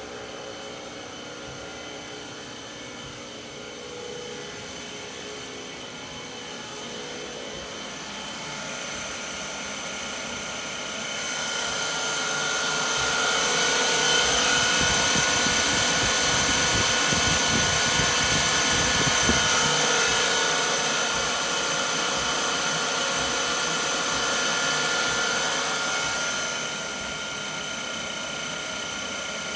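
A Magnetek GPD 503 variable-frequency drive running an electric motor on test: a steady mechanical whine with several held tones. It gets louder over a few seconds and holds for several seconds, then steps down twice, as the speed is raised and lowered.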